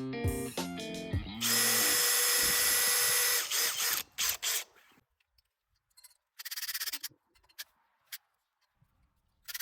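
Power drill running steadily for about two seconds with a high whine, then a few short squeezes of the trigger and a brief rapid run near the middle. A little guitar music at the very start.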